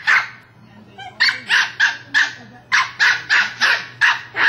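West Highland White Terrier barking at its toy ball: a long run of short, sharp barks, about three a second, with a brief pause about half a second in.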